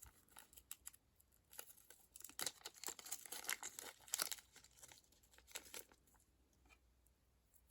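Faint crinkling and rustling of small packaging being handled and opened, in short scattered crackles that die away in the last couple of seconds.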